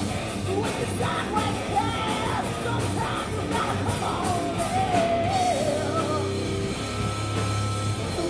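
Live rock band playing: electric guitars and a drum kit under a lead singer's loud, half-shouted vocal line.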